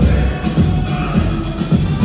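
Loud dance music with a heavy, steady beat, played over a PA system for a stage dance routine.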